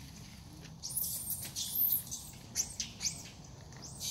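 Macaque squealing in a rapid run of short, high-pitched arching cries, starting about a second in, as the monkeys grapple.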